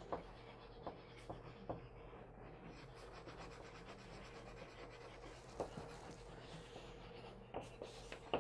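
A chalk pastel stick scratching and rubbing on paper in small strokes as a small figure is coloured in. A few light ticks of the stick against the paper are scattered through it, over a faint steady hum.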